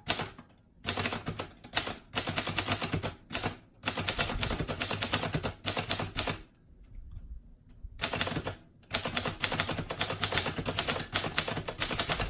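Groma Kolibri ultraslim manual typewriter being typed on: quick runs of keystroke clacks with short pauses between them, while the lowercase letters are typed out.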